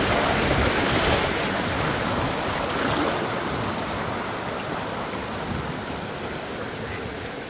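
River water rushing and splashing in a steady wash, slowly growing quieter.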